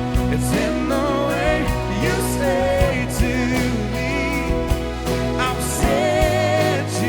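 Contemporary Christian worship music played by a live band: held bass and keyboard notes, drum hits, and a wavering sung melody.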